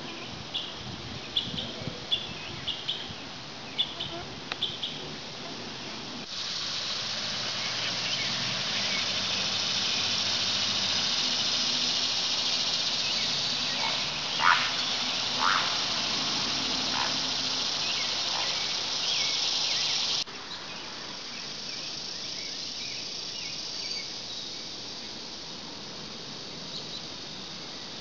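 Cicadas buzzing: a loud, steady, high buzz that comes in about six seconds in and cuts off suddenly about twenty seconds in, preceded by short repeated high chirps and followed by a fainter steady insect drone.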